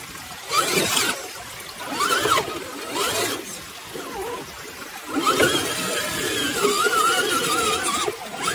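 Electric motor and gear whine of a scale RC crawler climbing a steep dirt slope, in throttle bursts whose pitch rises and falls with each one. Three short bursts are followed by a longer, wavering one from about five seconds in.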